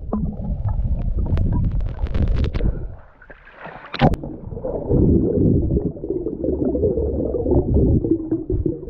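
Muffled underwater sound of water moving against the camera: a low rumbling, a run of clicks early on, and a single sharp knock about four seconds in.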